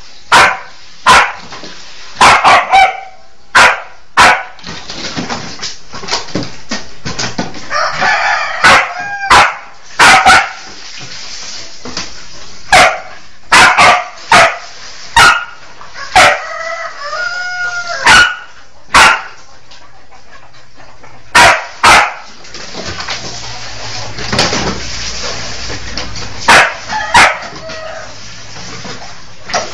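A dog barking repeatedly in loud, sharp single barks and short runs, with a chicken squawking in between.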